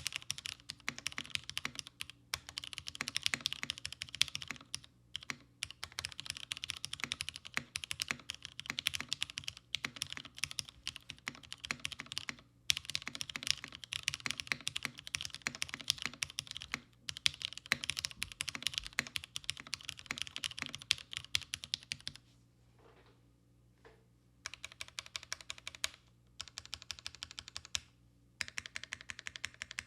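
Continuous fast typing on a Haus mechanical keyboard with vintage 1992 Cherry MX Black linear switches, a top-mounted aluminium plate and ePBT keycaps: rapid overlapping keystroke clacks. The typing pauses briefly a few times and stops for about two seconds roughly three-quarters of the way through, then starts again.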